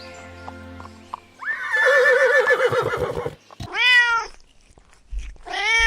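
A horse whinnies with a wavering pitch for about two seconds, then a cat meows twice, each a short rising-and-falling call.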